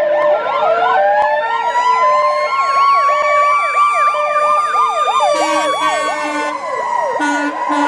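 Several ambulance sirens sounding together. A fast up-and-down warble repeats throughout, one wail rises during the first second and then holds, and a two-tone siren alternates between a high and a low note.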